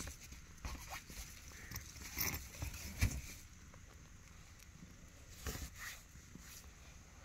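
Soft rustling and a few light taps close to the microphone from a Himalayan mother cat and her week-old kittens nursing on a blanket.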